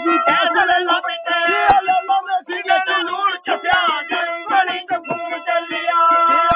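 A man singing with musical accompaniment, his voice sliding between notes and holding one long note near the end.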